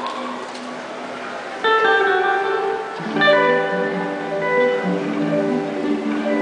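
Hollow-body archtop electric guitar playing slow, ringing chords live, with a new chord struck about a second and a half in and another about three seconds in.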